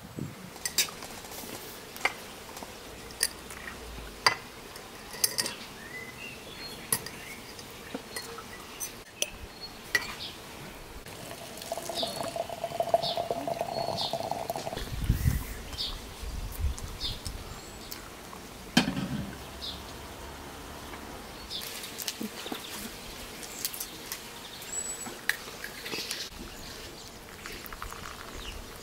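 Water poured into a porcelain teapot to brew the tea, with a steady pitched pouring tone for about three seconds. Sharp clicks and light taps are scattered through the rest, with one louder knock.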